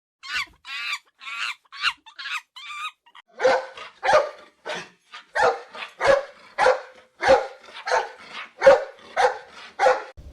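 A dog barking repeatedly, about two barks a second: high, thin yips for the first three seconds, then deeper, fuller barks.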